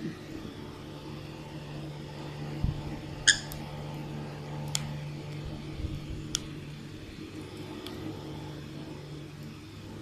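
Sun conure giving a few short, faint squeaks while it is petted lying on its back, the first rising in pitch, over a steady low hum.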